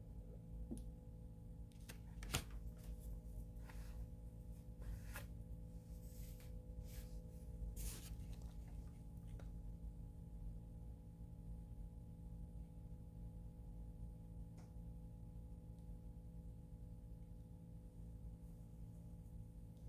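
Faint clicks and scrapes of metal parts being handled as a VW swing-axle tube is fitted onto the transaxle side cover and its nuts started on the studs, over a steady low hum. One sharper click comes about two seconds in, and the handling sounds thin out after about ten seconds.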